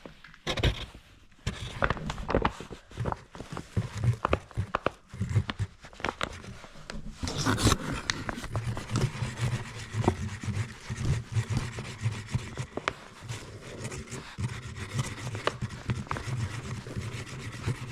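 Hands handling a bag of flour and packing it into the firework container: irregular rustling, rubbing and small knocks, with a louder scrape about seven seconds in.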